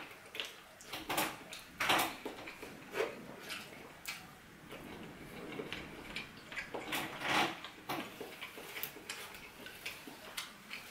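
A person chewing a mouthful of food, with irregular clinks of a fork against a plate.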